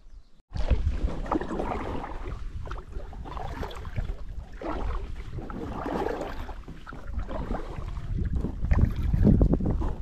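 Wind buffeting the microphone over water noise around an inflatable kayak, starting abruptly about half a second in and swelling and easing every couple of seconds.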